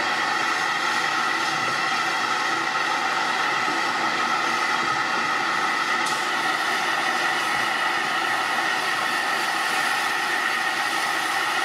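Steady hiss of steam escaping from the 1888 LNWR 'Coal Tank' 0-6-2T steam locomotive as it stands in steam, unbroken and even throughout.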